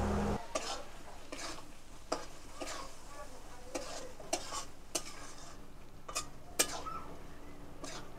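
Flat metal spatula stirring a thick yogurt and poppy-seed curry in an aluminium kadai, with irregular scrapes and knocks against the pan about once a second over a faint sizzle.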